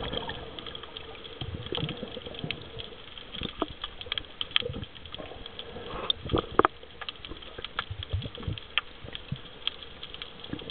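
Underwater sound through a camera's waterproof housing: a steady crackle of scattered sharp clicks under a faint steady hum, with short bubbling rushes a little past halfway and again a couple of seconds later.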